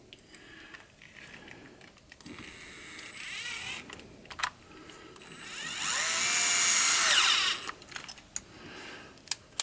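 DeWalt cordless power screwdriver driving stainless screws into an RC car chassis: a short run about two seconds in, then a longer, louder run about five seconds in whose whine rises, holds and stops. A few sharp clicks come between and after the runs.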